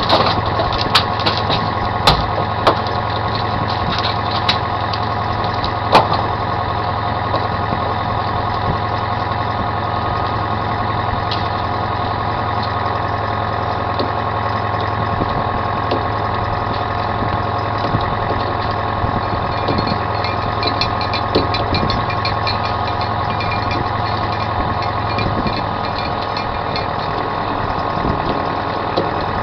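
A commercial salmon troller's engine running steadily at trolling speed, a constant drone. A few sharp knocks and clicks come in the first six seconds, and a run of rapid small ticks about twenty seconds in.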